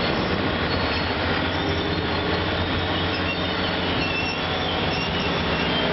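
Caltrain commuter train with a diesel locomotive running through the station: a steady rumble with rail noise, and a faint high wheel squeal in the second half.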